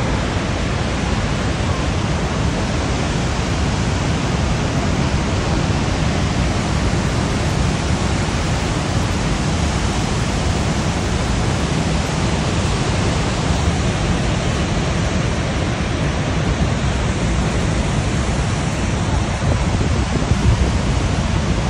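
Steady roar of Niagara Falls: a loud, deep, even rush of plunging water that never lets up.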